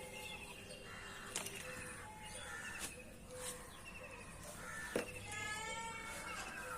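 Birds chirping and calling, with short repeated chirps and whistled notes and a few sharp clicks. About five seconds in, a longer, wavering animal call begins.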